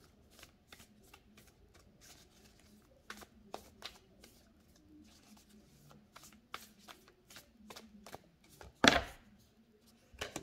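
Tarot cards being shuffled by hand: a run of light, irregular card flicks and taps, with one much louder thump about nine seconds in.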